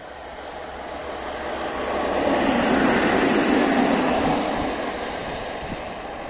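Freight train of a locomotive and open freight wagons passing close by on the track. The noise swells to a peak about three seconds in, then fades as the train moves away.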